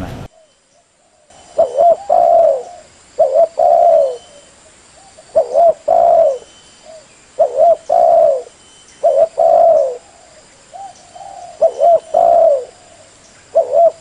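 Spotted doves (derkuku) cooing. Each phrase is a short note followed by a longer, falling coo, and it repeats seven times at roughly two-second intervals.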